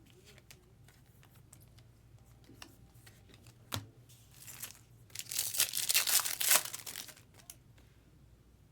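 Foil wrapper of a trading card pack being torn open and crinkled, a loud crackling tear lasting about two seconds in the second half, after a single sharp tap.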